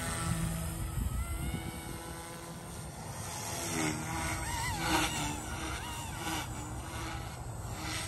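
Blade 150S micro RC helicopter flying, its motor and rotors giving a thin steady whine that bends up and down in pitch as it manoeuvres, most busily about halfway through, over a low rumble.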